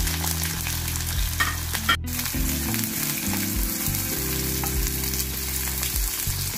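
Freshly added sliced onions sizzling as they fry in hot oil in a non-stick wok, stirred with a wooden spoon that scrapes and taps against the pan.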